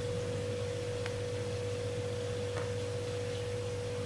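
Steady electrical hum: one held mid-pitched tone over a lower hum, unchanging throughout, with two faint ticks about a second and two and a half seconds in.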